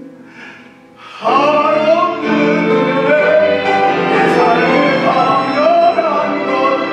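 A man singing a solo with vibrato, accompanied by a small string ensemble; the accompaniment plays softly alone for about a second before the voice comes in loudly.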